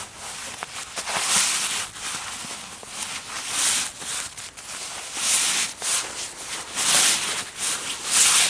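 Irregular rustling and scuffing: a series of short swishing noises, a second or two apart.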